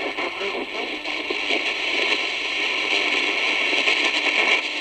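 Lowe HF-225 Europa shortwave receiver giving out static and hiss as it is tuned across the 31-metre band between stations.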